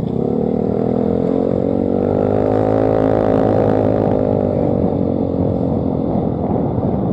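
Motorcycle engine under way, its note rising as it speeds up over the first three seconds, then slowly dropping as it eases off, over road and wind noise.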